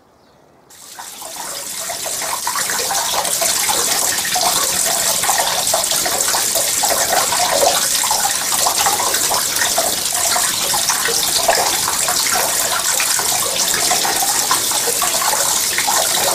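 Small garden statue fountain splashing steadily into a pond, starting suddenly about a second in and swelling to full level over the next couple of seconds.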